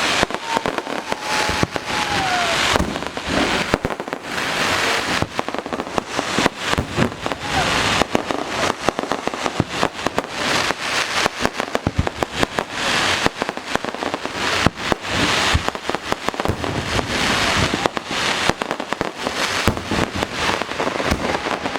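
Fireworks display heard from close to the launch site: a dense, continuous barrage of bangs and crackling bursts from aerial shells.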